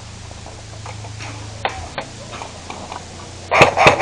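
A few faint, scattered clicks, then about three and a half seconds in an airsoft gun fires close by in a rapid, even string of sharp shots, about seven a second.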